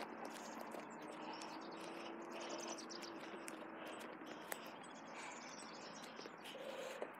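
Faint small birds chirping over soft footsteps on grass.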